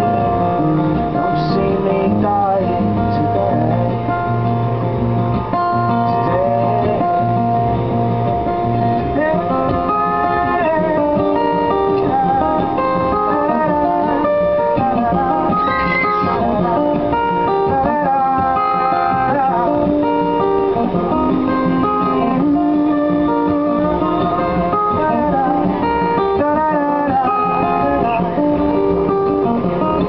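An acoustic guitar played live as part of a solo song, strummed and picked without a break.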